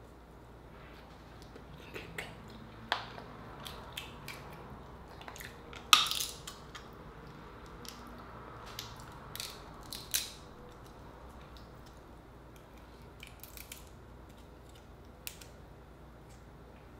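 Cooked Dungeness crab shell cracking and snapping as the legs and shell are pulled apart by hand: scattered sharp cracks, the loudest about six seconds in and again about ten seconds in.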